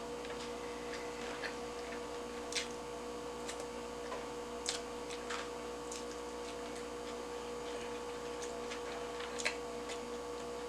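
A steady electrical hum at one fixed pitch, with a few faint, scattered clicks and ticks.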